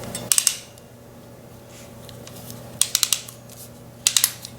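Hand crimping tool clicking as it is squeezed onto a wire butt connector: three short runs of quick metallic clicks, near the start, midway and near the end, over a faint steady hum.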